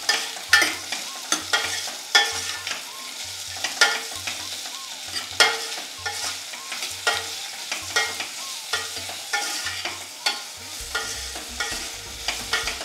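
Sliced onions frying in ghee and oil in a pressure cooker, stirred with a steel ladle. The ladle clinks and scrapes against the pot again and again over a steady sizzle.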